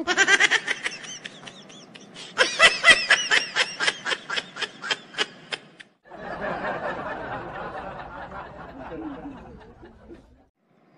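Canned laughter: a rapid, high-pitched snickering laugh track for about six seconds, followed by a quieter, hissy sound that lasts about four seconds and then stops.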